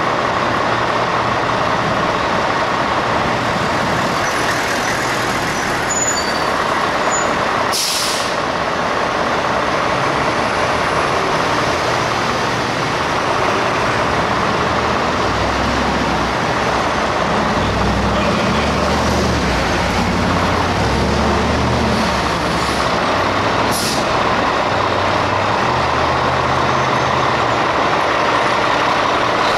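Fire truck's diesel engine running in the firehouse bay, with short sharp bursts of air hiss from the air brakes about 8 seconds in and again near 24 seconds. From about halfway through, the engine's low throb grows stronger as the rig pulls out.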